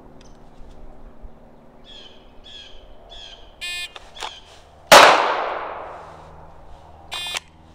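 A shot timer's start beep, then about a second later a single shot from a 9mm Glock 19 pistol that rings out and dies away over a couple of seconds; a second beep from the timer follows near the end. Birds chirp a few times before the first beep.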